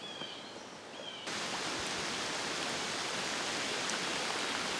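Steady rain falling, an even hiss that begins abruptly about a second in. Before it, a few short high chirps sound over quiet woods.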